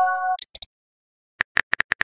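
Texting-app sound effects: a short synthesized message chime dies away, a couple of quick clicks follow, and after a pause about a second in, a rapid run of phone-keyboard typing clicks starts.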